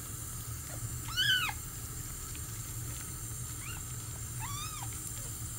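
Two-week-old kitten mewing three times, short high cries that rise and fall in pitch: one about a second in and two close together near the end, the middle one faint.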